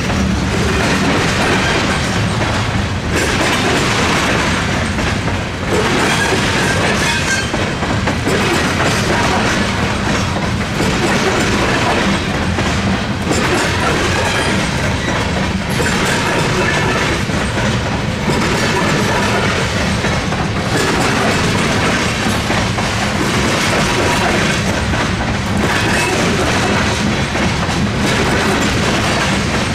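CSX tank cars rolling over a railroad diamond crossing, the wheels clattering across the crossing's rail gaps. The clatter swells about every two and a half seconds as car after car passes.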